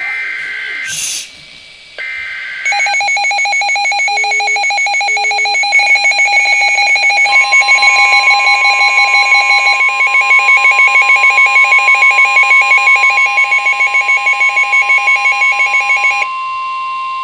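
Emergency Alert System broadcast tones. Two short screechy digital header bursts with a rising chirp between them, then a loud, rapidly pulsing two-tone attention alarm. About seven seconds in, a steady single tone, the weather-radio warning tone, joins the pulsing alarm and carries on alone briefly after it stops near the end.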